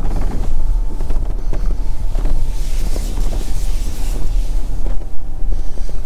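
Jeep Gladiator driving on an unpaved forest road: a steady low rumble with wind buffeting the microphone, and scattered knocks and rattles.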